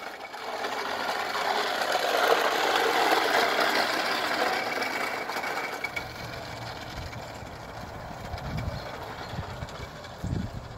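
Plastic toy push lawnmower rattling as its wheels roll over concrete. The rattle is loudest in the first half and fades about halfway through, leaving irregular low thumps.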